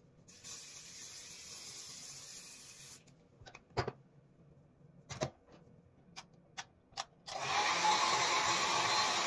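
An aerosol hair spray hissing in one spray of about three seconds, then a few light knocks and clicks of things being handled. About seven seconds in, a hair dryer switches on and blows steadily, louder than the spray.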